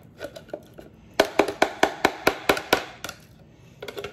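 Plastic food-processor blade assembly knocked against the rim of its plastic bowl: a quick run of about eight sharp taps about a second in, with a few softer clicks around it.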